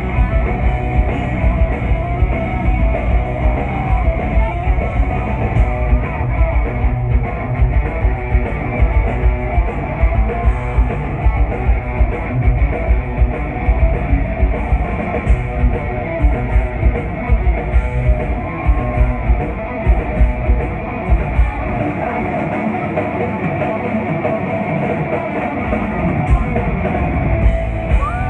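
Heavy metal band playing loud and live: distorted electric guitars over bass and a driving drum kit with a steady kick beat. For a few seconds in the second half the deepest bass drops away.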